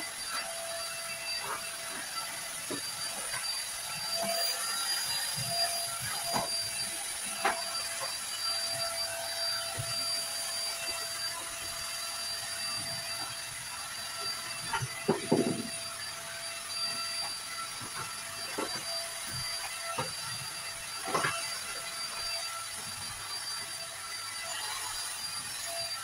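A cordless stick vacuum cleaner running with a steady high whine and hiss. Scattered knocks and bumps sound over it, the loudest about 15 seconds in.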